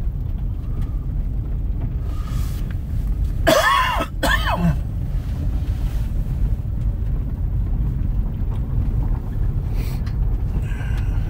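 Steady low road rumble inside a moving vehicle's cabin, with a man coughing twice in quick succession about three and a half seconds in.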